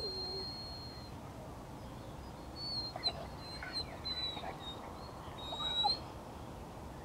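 Wild birds calling in woodland: a long, thin, steady high whistled note over the first second, then scattered short high chirps and a few brief sliding calls.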